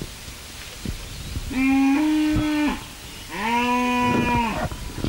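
Cattle mooing: two long calls at an even pitch, the first about a second and a half in and the second about three and a third seconds in.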